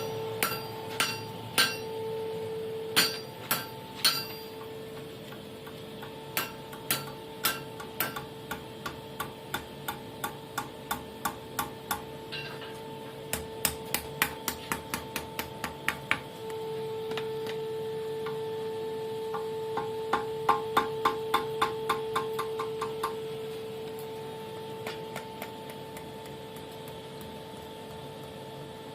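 Blacksmith's hammer striking hot steel on an anvil, forging the small curled turns on the ends of a flint-and-steel striker. The blows come in runs: a few heavy ones at first, then steady strikes about two a second, then a quicker series of lighter, ringing taps about twenty seconds in. A steady hum runs underneath.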